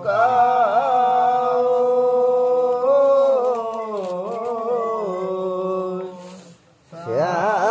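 A man's voice chanting a prayer in long held notes that waver and slowly fall in pitch. There is a short break about six seconds in before the chant resumes.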